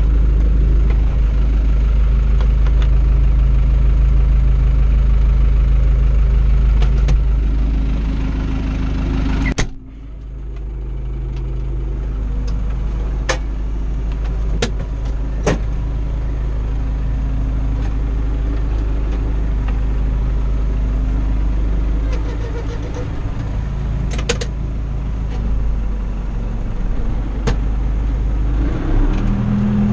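Turbocharged four-cylinder diesel of a Fiatagri 88-94 tractor running steadily, heard from inside the cab. About ten seconds in, a sharp click comes and the engine sound drops suddenly, then slowly builds back up. Short clicks and knocks of the cab and controls come here and there, and a new steady tone joins near the end.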